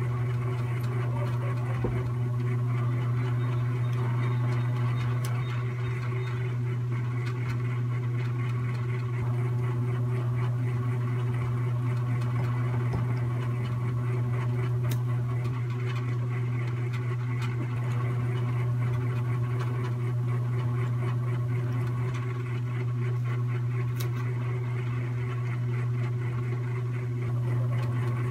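A steady low hum that does not change, with a few faint ticks.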